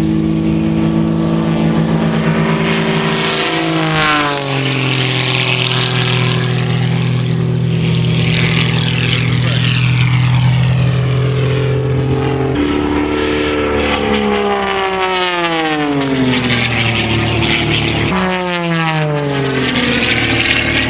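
Edge 540 aerobatic plane's six-cylinder Lycoming engine and propeller running at high power. Its pitch slides down about four seconds in and slides down twice more in the second half.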